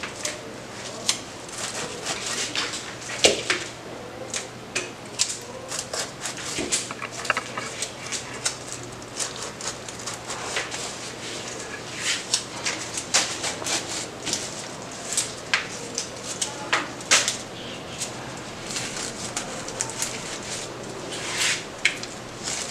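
Irregular rustling and light crackling, made up of many short, uneven clicks: flower stems and leaves being handled and pushed into floral foam.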